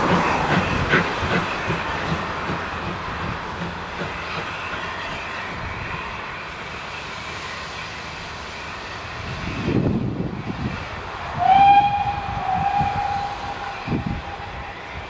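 Steam locomotives running in procession, their exhaust chuffing fading over the first few seconds. About eleven seconds in, a steam whistle gives one long note that lifts briefly and then holds steady.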